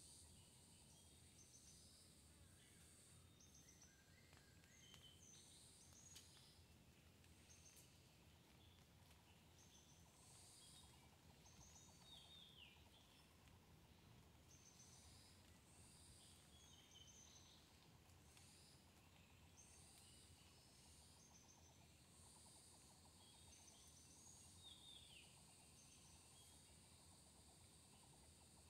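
Faint rural ambience: many small birds chirping and calling throughout, with a falling whistled call about twelve seconds in and again near the end, over a steady high hiss and a low rumble.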